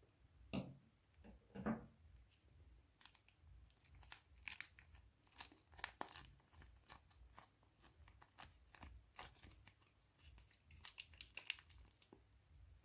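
Plastic piping bags crinkling and crackling as they are handled, in many short quick crackles, with two soft knocks in the first couple of seconds.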